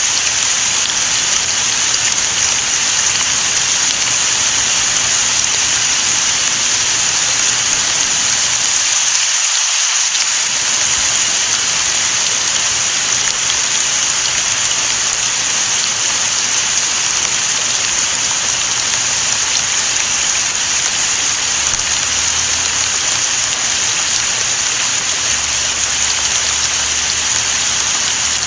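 Steady rain falling, an even, unbroken hiss that is strongest in its high, bright part.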